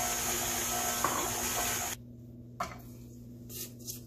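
Electric stand mixer running with its wire whisk beating cake batter after flour has gone in, a steady motor whine that is switched off abruptly about two seconds in. Then a click, and a spatula scraping the stainless steel bowl.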